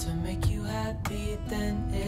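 Background music led by acoustic guitar, with held notes and plucked chords.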